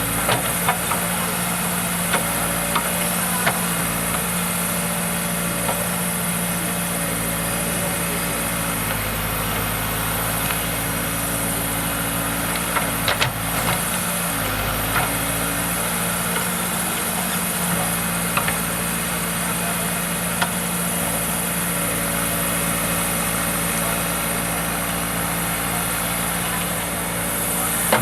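Diesel engine of a heavy earthmoving machine running steadily at constant speed, with a few short clanks about halfway through.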